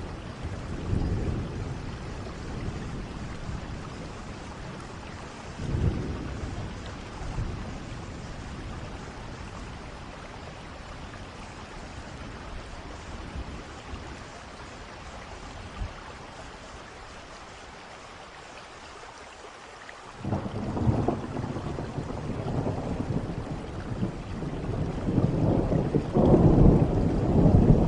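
Steady rain with thunder: low rumbles about a second in and again around six seconds, then thunder breaks suddenly about twenty seconds in and rolls on, growing louder near the end.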